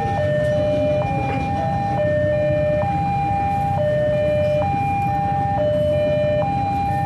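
Level-crossing warning alarm sounding a repeating two-tone high-low signal, each tone held for nearly a second, warning that a train is coming while the barrier is down. Under it runs a steady low rumble of waiting traffic.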